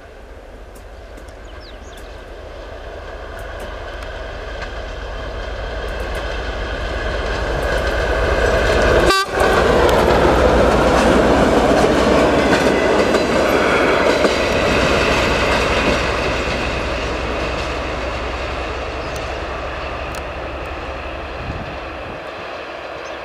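TEP70 diesel locomotive's 16-cylinder engine running under power as it passes with a track measurement car: growing louder on the approach, loudest about nine seconds in as it goes by with the wheels rumbling on the rails, then fading as it pulls away. A steady whine sits over the engine throughout.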